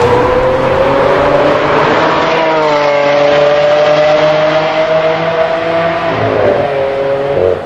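Lamborghini Aventador's V12 engine under hard acceleration as the car pulls away. The pitch climbs, drops sharply at an upshift about two seconds in, then climbs slowly again, with another drop around six seconds in.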